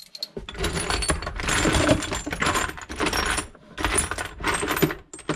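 Loose metal hardware (bolts, nuts and washers) clinking and clattering as it is rummaged through, in several bursts of dense small clicks.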